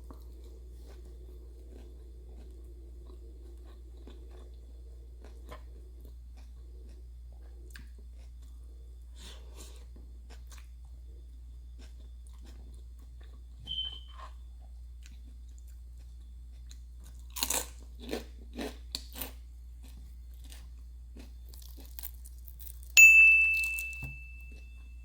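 Close-miked biting and chewing of crunchy fried food, with a quick run of about five loud crunches partway through. Near the end comes the loudest sound, a sharp clink that rings on briefly in a high tone.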